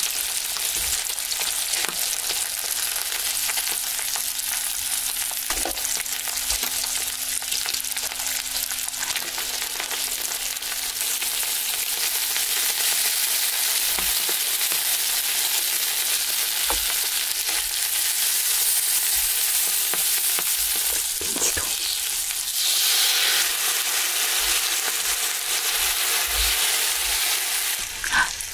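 Slices of pork belly sizzling in their fat on a hot flat grill pan, a steady crackling hiss, with occasional light clicks of metal tongs as the pieces are turned.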